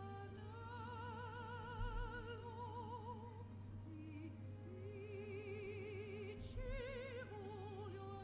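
Quiet background music in an operatic style: a series of long held notes sung or played with wide, even vibrato.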